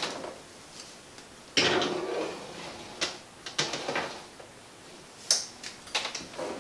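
A metal baking sheet being slid onto a wire oven rack: a long metal scrape about a second and a half in, then several sharp clanks and knocks.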